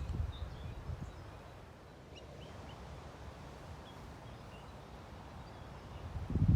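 Gusts of wind buffeting the microphone, easing off after about a second and picking up again near the end. Faint short bird chirps can be heard in the lull.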